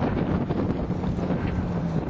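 Fire boat's motor running with a steady low drone, under wind noise rumbling on the microphone.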